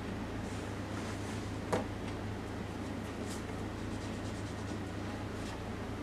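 Pencil strokes scratching faintly on drawing paper during shading, over a steady low hum, with one sharp tap a little under two seconds in.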